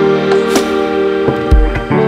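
Background music: held chords over percussion hits, with a deep drum thump about one and a half seconds in.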